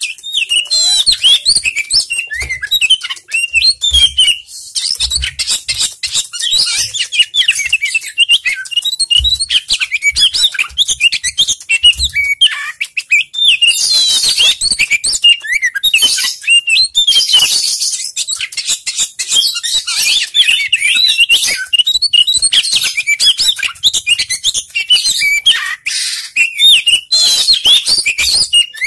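Oriental magpie-robin singing loudly and continuously, a rapid stream of varied chirps, whistles and warbled phrases with hardly a pause. A few soft, low thuds come in the first half.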